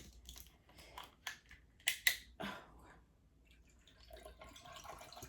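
A bottle of water being opened and handled, with a string of sharp clicks, the loudest about two seconds in. About four seconds in, water starts pouring steadily into a glass.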